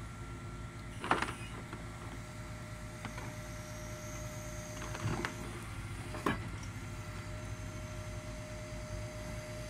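Boom truck's engine running its hydraulic knuckle-boom crane as the grapple moves: a steady low rumble under a steady high whine that drops out briefly around five seconds, with three sharp metallic knocks, about a second in, at five seconds and just past six seconds.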